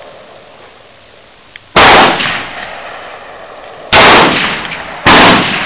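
Three loud gunshots, the first about two seconds in, then two more about two seconds and one second apart, each with a short echoing tail.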